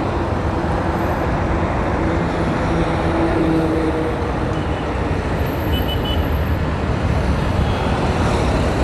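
Honda Hornet motorcycle on the move along a highway: a steady, loud mix of engine rumble, wind and road noise, with surrounding traffic.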